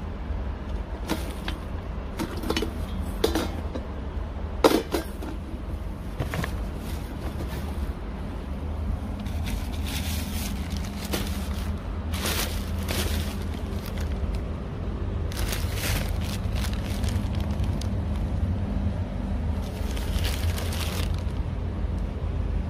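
Plastic courier parcel bag crinkling and rustling in several bursts as it is handled, with a few sharp clicks and knocks in the first few seconds. A steady low background rumble runs underneath.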